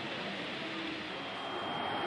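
Steady murmur of indistinct crowd chatter, with no single voice standing out.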